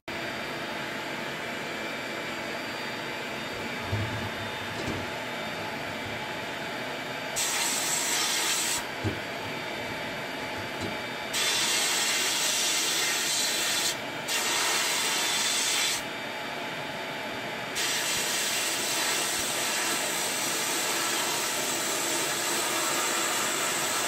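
Abrasive blast cabinet in use: the blast gun sprays media against a rusty steel bracket, hissing in four louder stretches. The longest runs for about seven seconds near the end, over a steady rushing noise.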